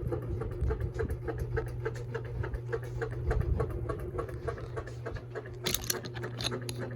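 Encon Crayon ceiling fan running on high: a steady motor hum with fast, regular ticking and rattling, and a sharper burst of noise nearly six seconds in. The fan is wobbling on bent blades and is really noisy.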